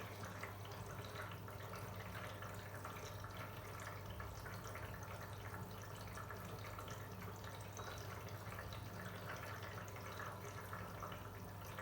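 Arçelik 3650 SJ front-loading washing machine filling with water at the start of its wash cycle: a faint steady rush and trickle of water running into the drum, over a low steady hum.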